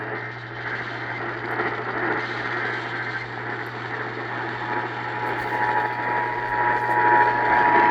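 AM radio reception hiss and static with a steady low hum. A little over halfway in, the Emergency Alert System two-tone attention signal (853 and 960 Hz together) starts and holds steady.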